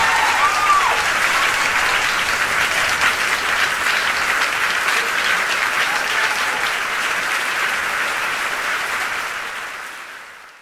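Concert audience applauding and cheering at the end of a rock song, a dense patter of many hands clapping that fades out near the end.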